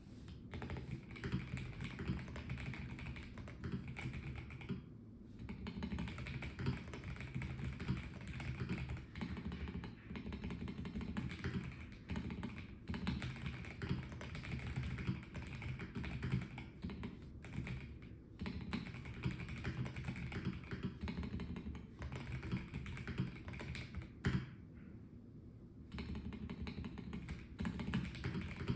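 Typing on a Melgeek Mojo84 plastic mechanical keyboard: fast runs of key clicks and clacks, with short pauses now and then and one louder keystroke near the end.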